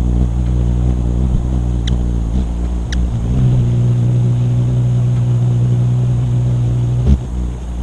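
Car engine and road noise heard while driving: a steady low drone, with two short ticks about two and three seconds in and a thump near the end, after which it quietens.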